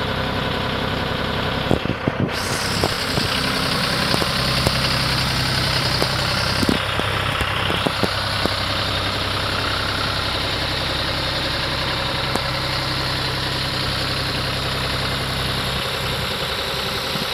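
John Deere 5303 tractor's three-cylinder diesel engine idling steadily, with a few light clicks in the first half.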